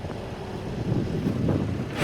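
Case 580N EP backhoe loader's diesel engine running with a steady low rumble, growing a little louder in the second half with a light mechanical clatter.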